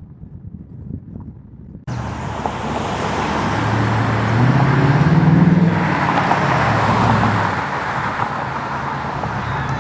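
Ford Mustang's 5.0 V8 engine accelerating. After a cut about two seconds in, the engine note climbs in pitch and gets louder to a peak about midway, then drops back and keeps running steadily.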